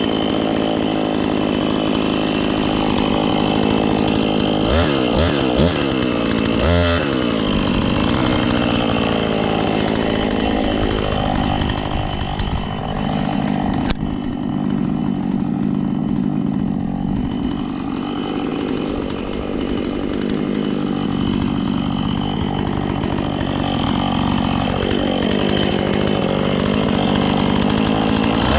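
Husqvarna two-stroke chainsaw running at high speed while cutting through dead elm, its engine pitch dipping under load and rising again several times. The chain is dull, which the owner says can be heard in the cut. A single sharp tick comes about halfway through.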